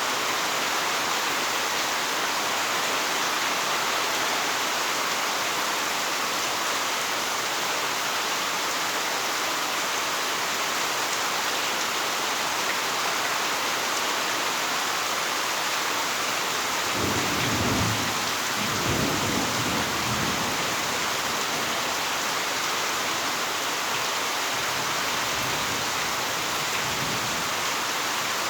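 Heavy rain falling steadily, with a low rumble of thunder a little past the middle and fainter rumbling near the end.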